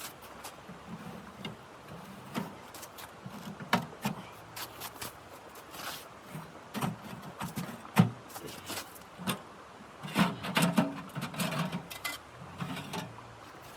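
Irregular knocks, clicks and clatter of objects being handled, with a sharp knock about eight seconds in and a busier stretch of clatter a couple of seconds later.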